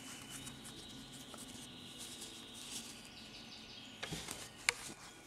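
Faint rustling of yarn as a metal crochet hook works single crochet stitches, with a brief handling rustle about four seconds in and one small sharp click just after.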